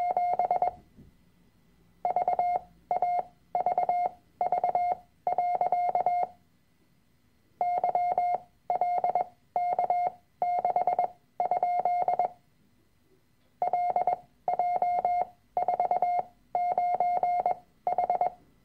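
Morse code practice tones: a steady tone of about 700 Hz keyed in dots and dashes, sent as five-character code groups at 20 words per minute with shortened gaps between characters. Three groups go by, each separated by a pause of about a second, with the end of another group at the very start.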